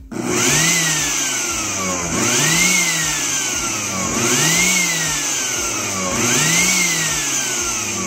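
Oster Xpert blender motor repeatedly spinning up and coasting down, a whine that rises quickly and then sinks slowly, about once every two seconds. The counter-clockwise motor winding is disconnected, so the motor turns only one way.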